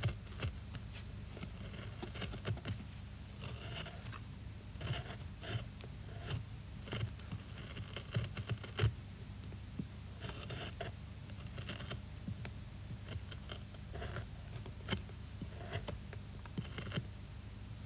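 A Japanese bent carving knife (magari-kiridashi) paring wood in short, irregular slicing scrapes, some sharper than others, over a low steady hum.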